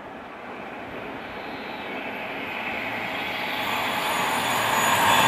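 A train approaching the station, its rushing running noise growing steadily louder.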